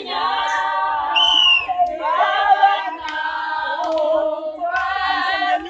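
Several voices singing together in long held notes, with short breaks between phrases.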